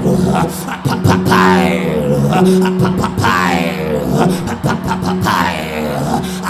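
Worship music with a steady low drone held throughout, a voice vocalising over it without clear words, and short percussive hits.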